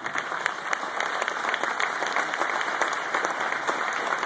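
Large crowd applauding, a dense, steady clapping.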